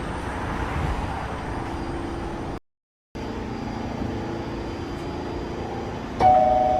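Steady hum and rumble of an R46 subway car, broken by a half-second dropout to silence about midway. Near the end the car's door chime begins, steady tones stepping down in pitch.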